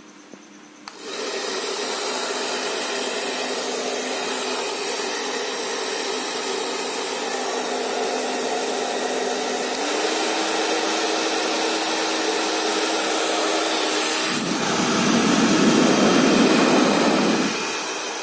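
CHAOBA 2000 W hair dryer switched on about a second in and running with a steady rush of air and a hum; the hum steps up slightly in pitch about ten seconds in. A louder, deeper rush of air comes for about three seconds near the end, after which the sound starts to die away.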